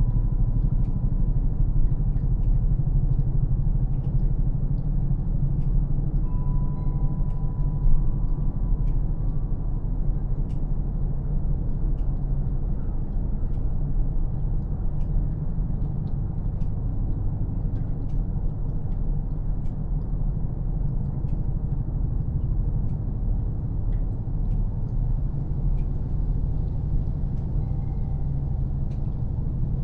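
Meltwater from melting snow dripping in irregular sharp drips, about one a second, over a steady low rumble of distant aircraft or traffic.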